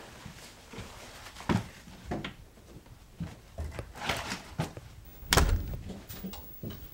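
A door shuts with a heavy thud about five seconds in. Before it come smaller knocks and rustles of people moving about and handling paper.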